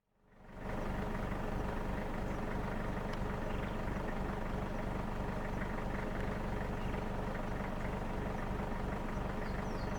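Car engine running steadily, fading in over the first second. A few faint high chirps come near the end.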